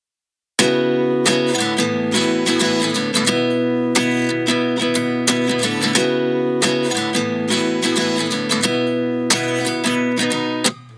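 Background music: strummed acoustic guitar chords, starting suddenly about half a second in after dead silence.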